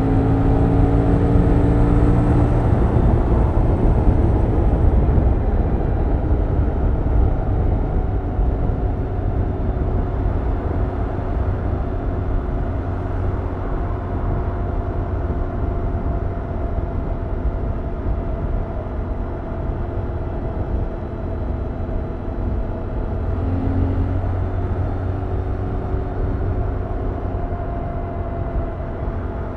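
Stock exhaust of a 2021 Yamaha MT-07's 689 cc parallel-twin engine on the move. The engine note falls over the first few seconds, then holds steady at a cruise, over a constant rushing noise.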